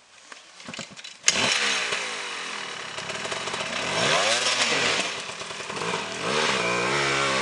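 Enduro dirt-bike engine catching suddenly about a second in, then running with the throttle blipped so the pitch rises and falls twice.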